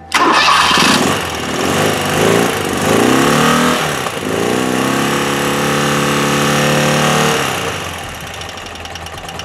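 BMW airhead flat-twin motorcycle engine running and being revved. It is blipped up and down a few times, held at raised revs for about two seconds, then drops back toward idle. This is a charging-system test after fitting a new integrated regulator/rectifier, with the charging reaching about 14 volts.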